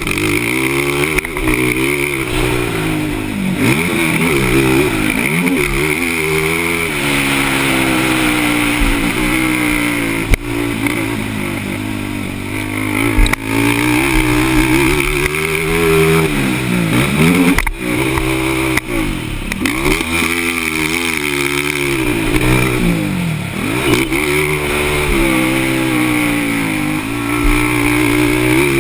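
Racing ATV engines revving on a motocross track, the pitch climbing and dropping again and again as the throttle is opened and closed every second or two.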